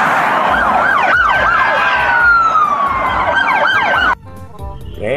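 Electronic police-car siren switching between a fast up-and-down yelp and a slow falling wail, over a steady rushing noise. It cuts off abruptly about four seconds in.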